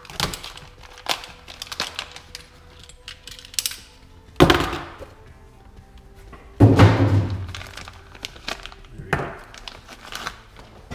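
Clear plastic parts bag being cut open and handled, crinkling, with scattered clicks and taps of the metal part inside. The loudest crinkles come about four and a half seconds in and again from about six and a half to seven and a half seconds.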